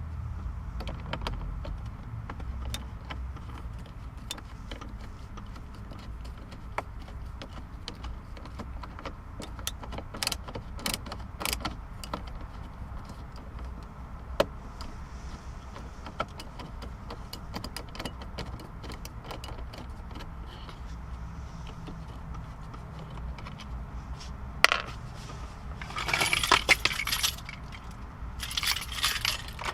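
Small metallic clicks and rattles of hand tools and screws while the radio trim screws are taken out of a car's dashboard. Near the end there are two short bursts of jingling metal, like keys.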